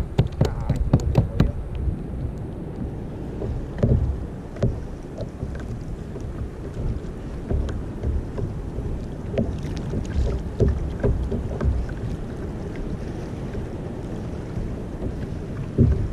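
Wind buffeting the microphone and water lapping against a sit-on-top kayak, with a quick run of clicks in the first second or two and a few dull knocks later on.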